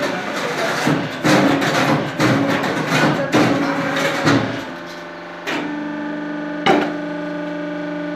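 Concrete block-making machine running, its electric motor humming steadily. For the first four and a half seconds dense metallic knocking and rattling sounds over the hum. Then a steady machine hum takes over, with one sharp knock near seven seconds.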